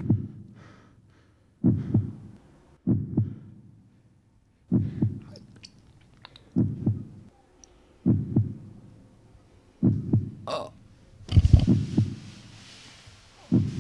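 Slow heartbeat sound effect: deep double thumps, lub-dub, repeating about every one and a half to two seconds.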